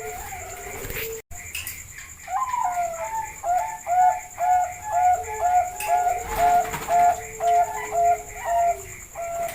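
Zebra dove (Bangkok perkutut) song: a quick run of short, repeated coos, about two a second, starting a couple of seconds in, with a lower drawn-out note beneath part of it.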